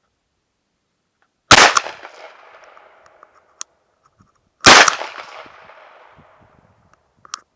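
Smith & Wesson Model 327 TRR8 .357 Magnum revolver firing two shots about three seconds apart, each a sharp crack followed by an echo that trails off over a couple of seconds. A short click comes between the shots and another near the end.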